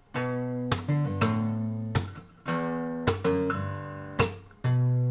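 Taylor GS8 acoustic guitar in open D-G-D-A-B-D tuning, played fingerstyle as a slap bass line. Low ringing notes are broken by a sharp percussive slap about once a second.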